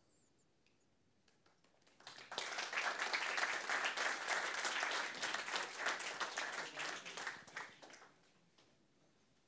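Audience applauding: dense clapping starts suddenly about two seconds in, holds for about five seconds, then dies away.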